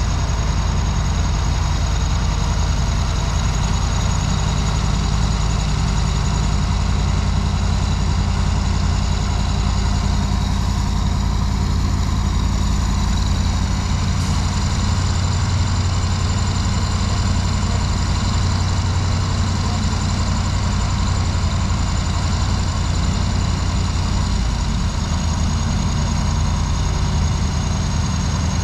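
Engines of heavy road-repair machinery running steadily, with most of the sound low down.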